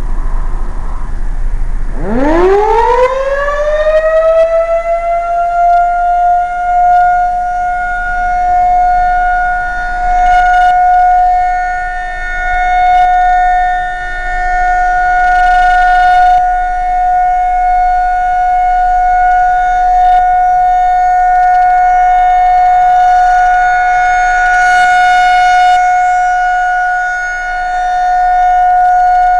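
Outdoor warning siren starting about two seconds in, its pitch gliding up from low to a steady single high tone within a few seconds and then holding. Its loudness swells and fades as the rotating siren head sweeps around. This is the siren's monthly test run on battery backup power.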